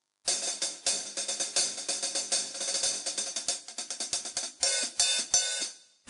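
Drum kit voiced with Toontrack's Metal Machine samples, playing a quick, steady run of hi-hat and cymbal strokes with only a few faint low hits underneath. It starts a moment in and stops just before the full kit with kick drum comes in.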